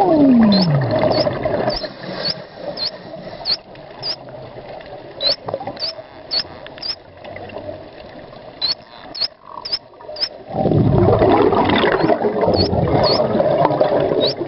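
Underwater: short high chirps from bottlenose dolphins, repeating two or three times a second, with a falling tone at the start. From about two-thirds of the way through, a diver's exhaled bubbles rumble loudly over them.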